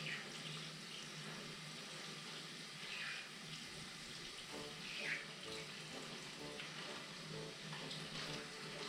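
Handheld shower head spraying water onto a kitten's fur, a steady hiss, with two short high-pitched sounds about three and five seconds in.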